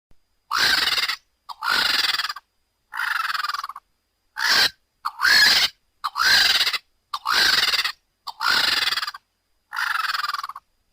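Vulture calls used as the voice of the pterosaur Quetzalcoatlus. There are nine hoarse, hissing calls, each under a second long, separated by short pauses.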